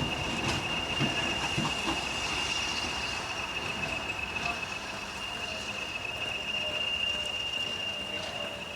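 A departing train, steam tank engine at the front and class 20 diesel at the rear, running past and pulling away. It carries a steady high-pitched whine and gradually fades.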